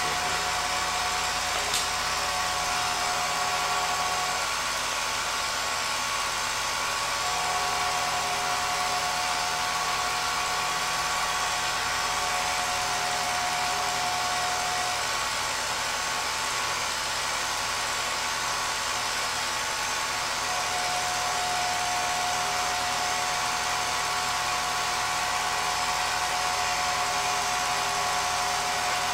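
Film projector running: a steady motor whir with a high, even whine that drops out and returns a few times.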